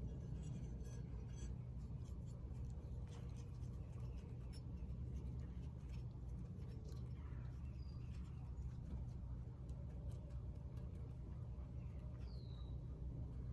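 Faint rubbing and light ticking of metallic rub-on finish being worked onto a small metal piece, over a steady low hum. Three short high chirps come through, near the start, about halfway through and near the end.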